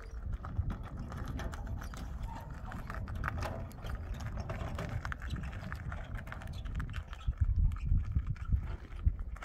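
An empty metal wheelbarrow rattling and knocking as it is pushed over stony ground, with footsteps on gravel. The knocks grow louder near the end.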